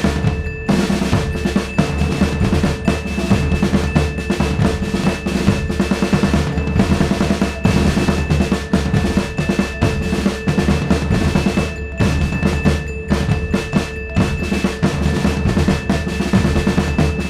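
Background music with a busy drum beat of snare rolls and bass drum under held tones.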